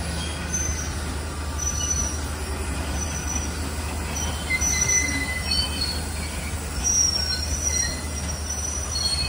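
Garib Rath Express passenger train running on the rails: a steady low rumble, with short high-pitched wheel squeals coming and going many times.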